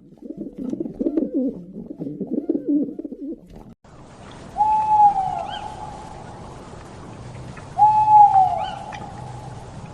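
Bird calls: low, wavering cooing for the first few seconds. After a cut to a new recording, two long steady hooting calls come about three seconds apart, with faint chirps behind them.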